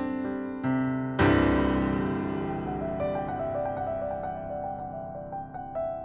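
Slow solo piano music: a full low chord struck about a second in and left to ring and fade, followed by soft, sparse higher notes.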